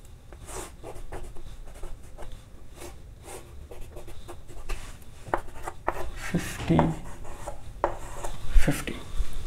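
Chalk scratching and tapping on a blackboard as lines and arrowheads are drawn, in short, irregular strokes.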